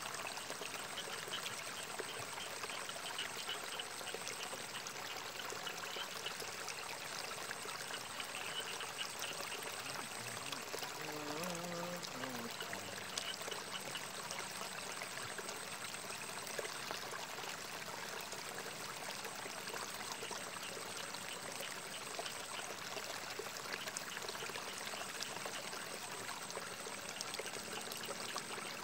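Steady trickle of running water in a small irrigation ditch. About ten seconds in, a short pitched call rises and falls for a couple of seconds.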